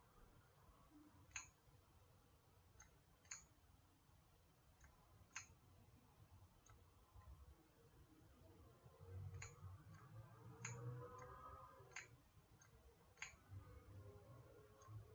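Faint, sharp clicks, about a dozen at irregular intervals, over quiet room tone, with a low rumble for a couple of seconds past the middle.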